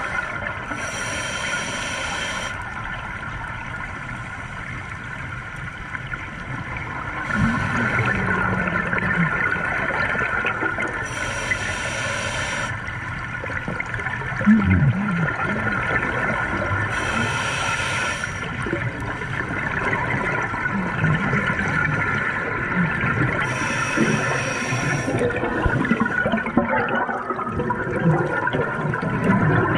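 Exhaled air bubbling out of a scuba regulator underwater in bursts about every five to six seconds, over a steady hum.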